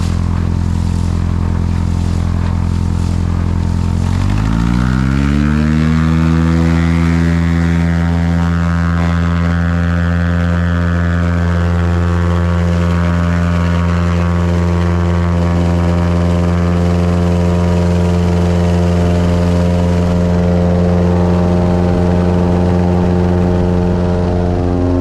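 Floatplane's engine and propeller running steadily, then revving up about four seconds in and holding at the higher power, with water rushing and spraying off the float.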